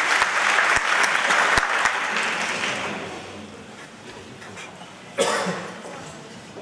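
Audience applauding, starting suddenly and fading after a few seconds, then swelling again briefly about five seconds in.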